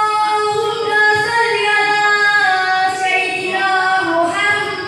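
A female voice singing a sholawat, an Islamic devotional song, in long held notes that glide from one pitch to the next.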